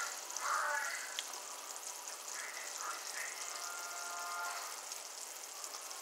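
Sugar syrup boiling steadily in a saucepan on low heat, a constant fizzing of small bubbles bursting, with a brief faint tone about four seconds in.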